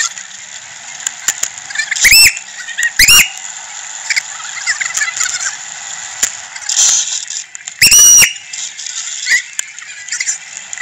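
Three loud, shrill whistle toots: two short ones about a second apart, then a longer one a few seconds later. Each slides up in pitch and then holds. Under them runs a constant street hiss with small clicks and rattles.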